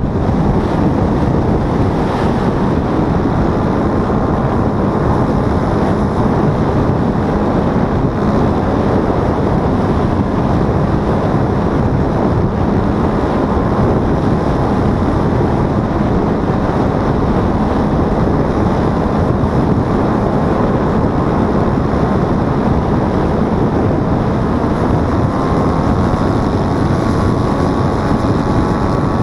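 Paramotor engine and propeller running in flight, buried in heavy wind rush on the microphone. Near the end a clearer engine note comes through and rises slightly.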